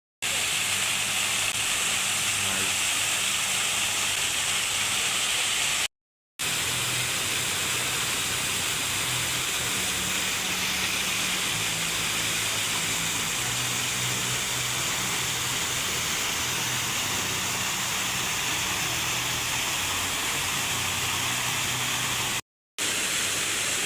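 Steady rush of falling water, as from a garden pond's fountain or small waterfall. It cuts out to silence twice, briefly.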